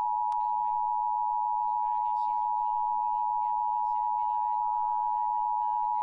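Emergency Alert System attention signal: the steady two-tone alarm (853 and 960 Hz) held unbroken, marking the start of a Severe Thunderstorm Warning. The TV programme's voices are faintly audible beneath it.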